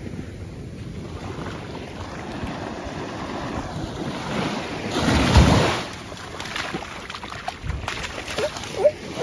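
Ocean surf washing onto a sandy beach, with wind on the microphone; a wave breaks and washes in about five seconds in. A short squeak near the end.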